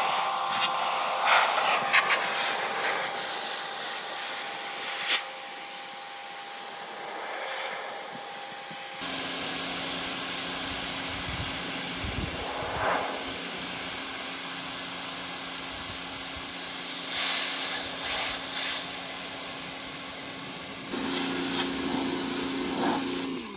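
Electric pressure washer spraying a jet of cold water against the rusty steel inside of an offset smoker's cook chamber and lid: a steady loud hiss of water on metal, with a low steady hum under it. The hiss changes in tone once, about nine seconds in.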